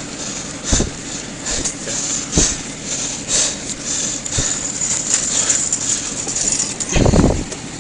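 Handling noise on a body-worn camera: clothing rustling and rubbing against the microphone, with a few light knocks and a heavier bump near the end.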